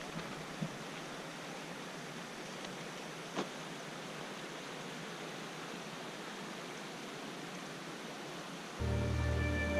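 Steady, even rush of water from a mountain stream and waterfall, with a couple of faint ticks. Background music comes in near the end.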